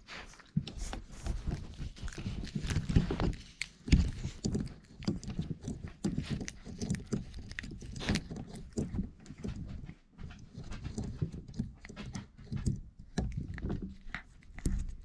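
Four-week-old Irish Setter puppies scuffling and pawing right at the microphone: a run of irregular soft thumps, taps and scrapes as they bump into the camera and scrabble on the blanket.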